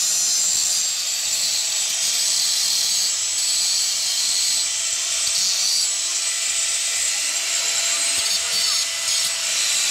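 Handheld angle grinder running at full speed, its cut-off disc slicing through a round steel tube: a steady high whine with the hiss of the disc biting the metal.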